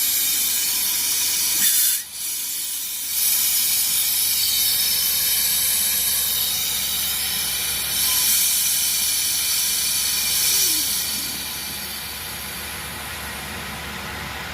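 High-pressure air hissing out of the GX-E-5k2 400-bar compressor's bleed valve as the stopped unit is vented, purging a little moisture. The hiss cuts out briefly about two seconds in, then resumes and eases to a quieter steady level near the end.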